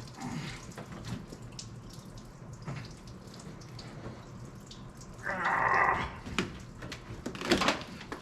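Leftover green antifreeze running and dripping out of the car's heater plumbing, with scattered clicks and knocks. It gets louder for about a second around the middle.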